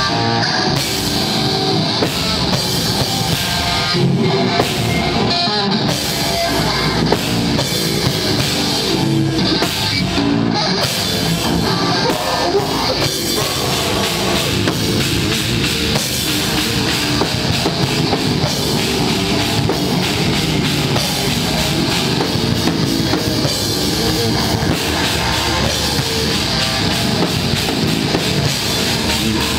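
Live heavy rock band playing loud, with guitars and drum kit. The first ten seconds or so come in short stop-start hits, then the band plays continuously.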